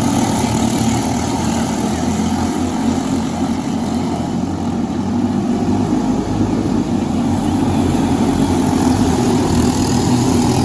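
Briggs & Stratton LO206 single-cylinder four-stroke kart engine sound, a steady, continuous drone without sharp changes.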